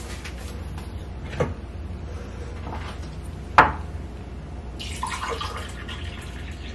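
Two knocks on the kitchen counter, the second louder, then hot water poured from a white kettle into a glass, starting about five seconds in.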